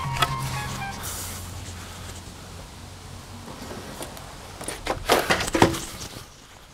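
Long wooden boards toppling over and clattering, a quick cluster of loud knocks about five seconds in.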